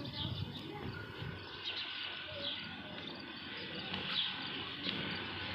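Small birds chirping over a steady outdoor background hum.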